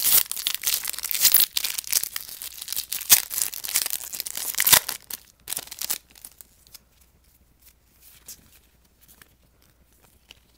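Foil wrapper of a trading-card pack being torn open and crinkled, with sharp crackles, for about five seconds. Then only faint light rustles and ticks as the cards are handled.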